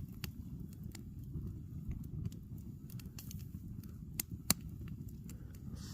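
Fire crackling: scattered sharp pops and snaps over a low steady rumble, with two louder pops close together about two-thirds of the way through.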